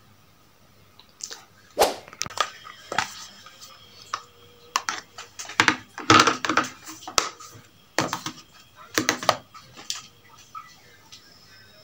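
Desk handling sounds: papers in plastic sheet protectors rustling and crackling, with sharp clicks and knocks as things are picked up and put down, in an irregular run that stops near the end.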